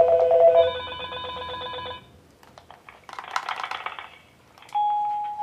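FERMAX DUOX video intercom ringing with its electronic call tone, a rapidly warbling ring that steps up in pitch about a second in and stops after about two seconds. A brief hiss follows, and near the end a single steady beep sounds as the monitor's button is pressed.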